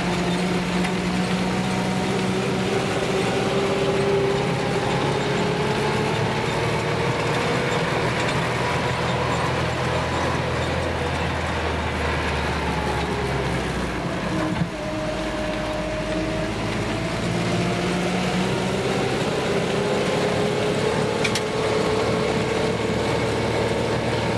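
Jeep engine and road noise heard from inside the cab while driving. The engine note rises and falls steadily, with a brief dip and change of pitch about halfway through.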